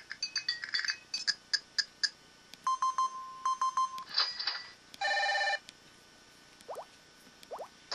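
LG-KP2000 mobile phone's built-in effect tones playing through its small speaker: a string of short electronic blips, a steady mid-pitched beep broken into pulses about three seconds in, a brief held chord about five seconds in, and two faint rising chirps near the end.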